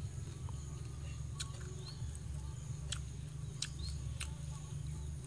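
Crisp deep-fried tarantulas being chewed and pulled apart by hand: a handful of short, sharp crunches and clicks, spaced out, over a steady high hum.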